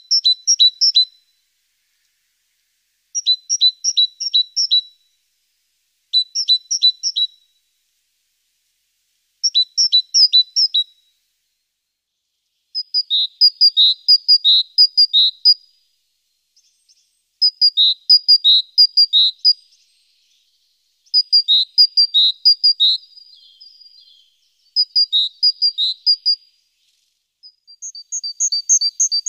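A songbird singing short phrases of quick, high repeated notes, a new phrase about every three to four seconds. The later phrases are longer and hold more notes.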